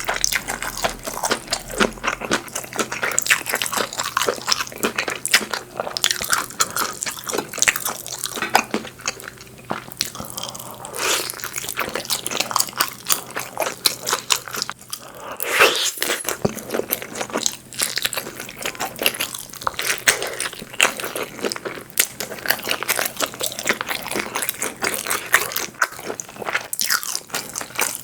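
Close-miked eating sounds: a person biting and chewing, with a dense, continuous run of small wet mouth clicks and smacks.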